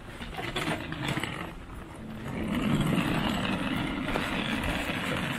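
Hard wheels of a rolling suitcase rattling over asphalt as it is pulled along. The rattle starts about two seconds in.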